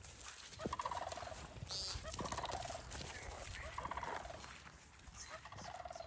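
American woodcock peenting on the ground: a buzzy, nasal call repeated four times, about a second and a half apart, each note stepping down slightly in pitch.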